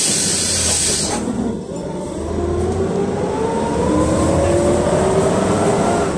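PAZ-32054 bus with its ZMZ-5234 V8 engine, heard from inside the cabin: a loud hiss lasts about a second, then the bus pulls away with a rising whine climbing steadily in pitch over the engine rumble as it accelerates.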